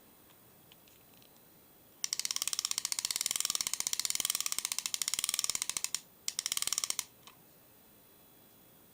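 Angler Ranger 666-A fixed spool spinning reel turning with a rapid, even ratchet clicking. It starts about two seconds in and runs for some four seconds, stops briefly, then gives a shorter run of clicks.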